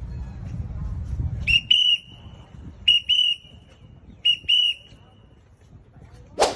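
Police traffic whistle blown as a signal: three pairs of short, shrill blasts about a second and a half apart. A low rumble of background noise fades out just before the first pair, and a sharp click comes near the end.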